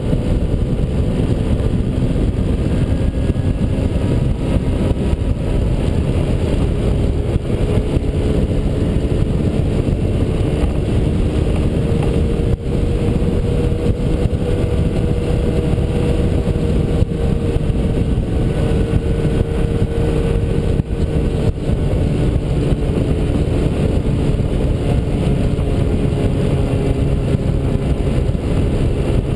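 Honda Elite 80 scooter's small single-cylinder four-stroke engine running at a steady cruise, its pitch rising slightly partway through and easing back. Heavy wind rush on the front-mounted camera's microphone at speed.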